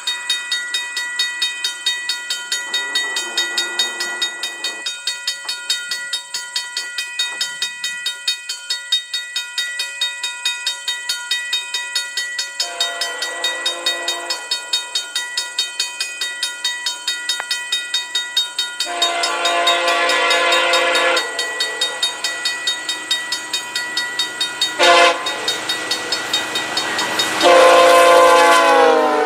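Horn of a VIA Rail GE P42DC passenger locomotive sounding the long-long-short-long grade-crossing signal as the train approaches, after a faint distant blast early on. The final long blast drops in pitch as the locomotive passes close by. Under it, a level-crossing signal bell dings steadily and rhythmically.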